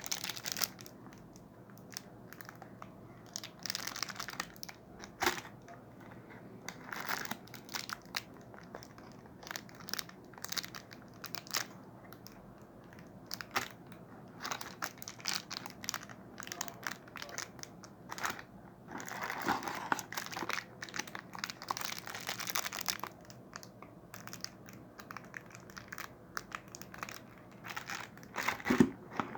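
Plastic packaging crinkling and rustling in irregular handfuls, with small clicks and knocks as accessories are unwrapped and handled.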